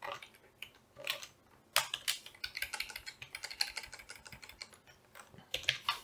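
Typing on a computer keyboard. A few single key presses come first, then a quick run of keystrokes through the middle, then a few more presses near the end.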